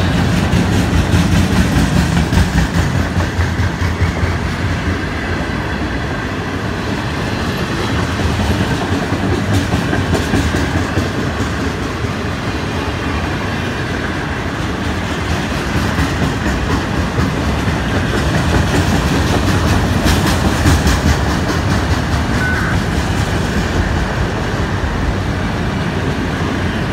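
Freight train's autorack cars rolling past, a steady rumble with repeated wheel clicks over the rail joints.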